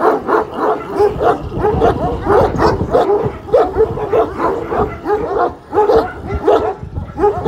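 Kangal shepherd dogs barking at each other through a chain-link fence: a rapid, unbroken run of barks, about two or three a second.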